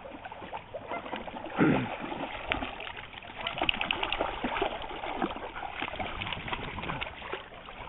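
Two dogs wading and splashing through shallow water as they play, with a short low growl about a second and a half in.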